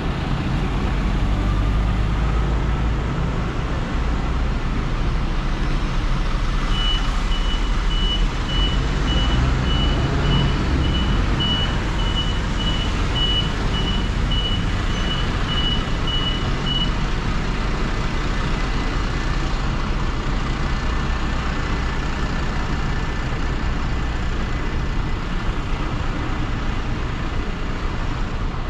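City street traffic running steadily, with a low rumble of passing vehicles. From about seven seconds in, a high electronic beeper sounds in a regular repeating pattern for about ten seconds, then stops.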